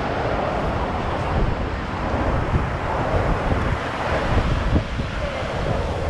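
Wind buffeting the microphone in irregular low gusts over the steady wash of ocean surf.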